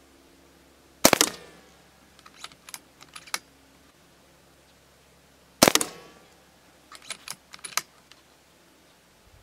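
Two shots from a shrouded .22 Brocock Sniper XR PCP air rifle, about four and a half seconds apart. Each shot is followed a second or so later by a quick run of three or four metallic clicks, the side lever being worked to cock the rifle and chamber the next pellet.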